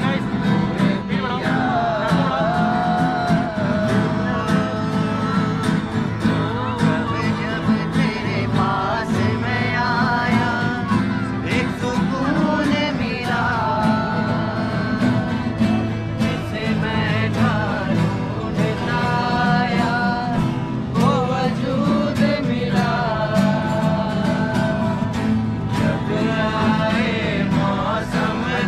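Young men singing a Bollywood song together to several strummed acoustic guitars, a live unplugged jam.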